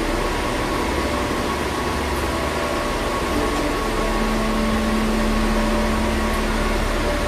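Steady whir of equipment-room cooling fans and air conditioning, with a low electrical hum and a few faint steady tones underneath.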